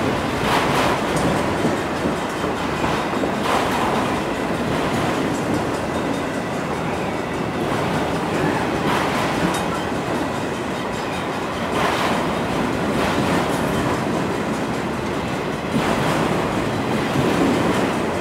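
Long freight train of autorack cars rolling past at speed, a steady rumble of steel wheels on rail with a click-clack over the rail joints every few seconds.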